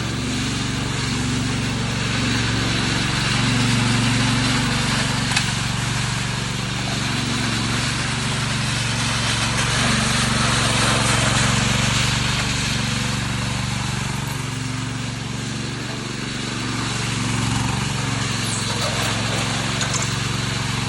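Engine of a ride-on double power trowel running steadily, its level swelling and easing gently a few times.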